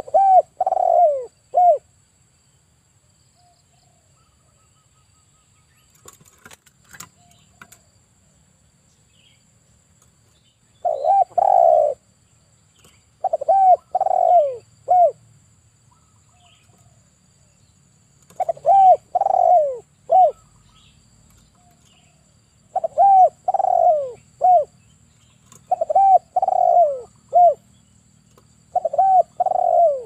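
Male spotted dove cooing: seven short phrases of three or four falling coos each, a few seconds apart.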